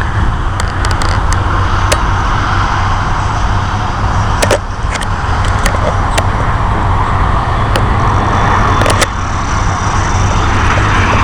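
Steady roar of an approaching jet airliner, the noise building towards the end, over a heavy rumble of wind on the microphone. A few sharp clicks cut through it.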